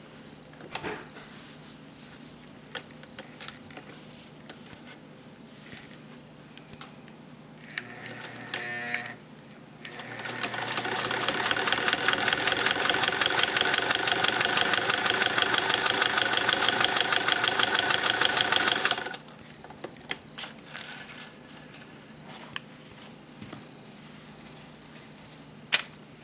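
93-year-old Singer 128K sewing machine stitching through eight folded layers of fabric: a rapid, even mechanical clatter that starts about ten seconds in and stops about nine seconds later. Light clicks and fabric handling come before and after.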